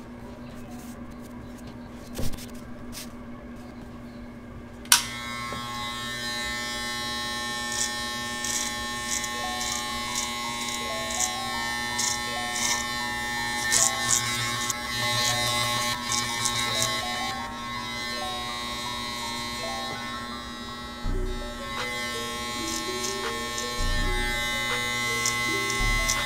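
Andis Master electric hair clippers with a guard running with a steady buzz as they cut short hair, under background music that gets louder about five seconds in.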